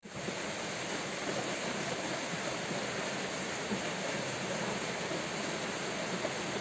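Steady rain falling: an even, unbroken hiss with a fine grainy texture of drops.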